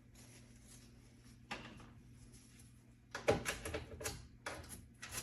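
Cloth wiping and scrubbing over the microwave's surfaces: faint rubbing at first, then from about three seconds in a quick run of louder, short strokes, three or four a second.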